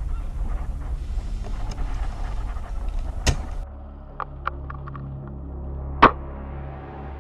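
Low rumbling wind and handling noise with one sharp click about three seconds in. The sound then drops to a quieter background with a few light clicks, and about six seconds in comes a single sharp snap: a bolt-action spring airsoft sniper rifle (Novritsch SSG-24) firing.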